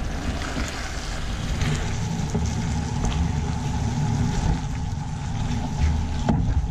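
Spaghetti and tomato sauce sizzling in a hot, steaming skillet as it is tossed with silicone tongs, over a steady low rumble. A sharp clack near the end.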